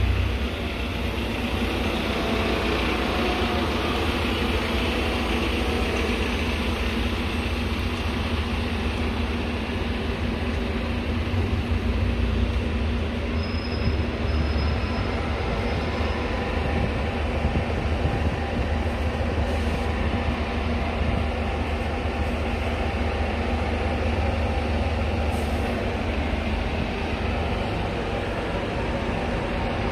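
Diesel bus engines running at a bus station: a steady low rumble with a constant hum, and a short faint high squeal a little before halfway through.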